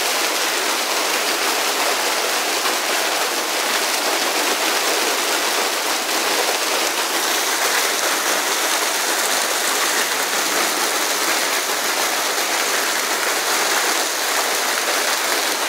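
Hail falling heavily and steadily, a dense, even rushing clatter with no let-up.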